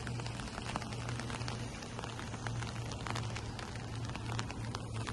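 Light rain pattering, a steady hiss scattered with many small irregular drop clicks, over a low steady hum.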